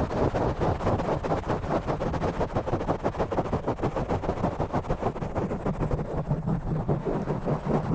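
Fast, rough fingernail scratching and rubbing directly on a microphone, a rapid run of many scratchy strokes with a heavy rumble.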